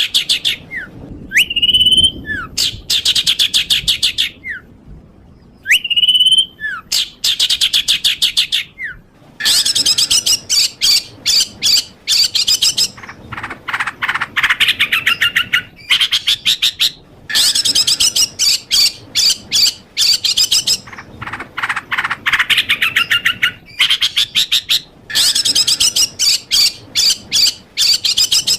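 Songbird singing in repeated bursts of fast, rapidly repeated high notes, each burst a second or so long with short pauses between; the first few bursts open with a short whistled note.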